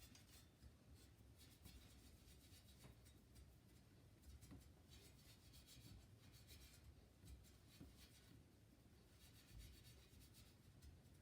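Faint rubbing and scratching that comes and goes in stretches, close to near silence.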